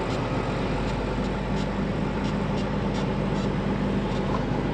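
Truck running at road speed, heard from inside the cab: a steady engine drone with road noise and a few faint light rattles.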